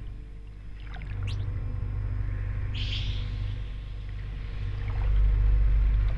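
Hydrophone recording of underwater water noise with a few brief rising sonar chirps about a second in and a short hiss near the middle. Under it run low, sustained bass guitar notes with reverb, loudest near the end.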